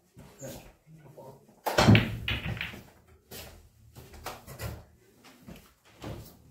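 Low, scattered chatter from onlookers, broken by one loud thump just under two seconds in that dies away over about a second.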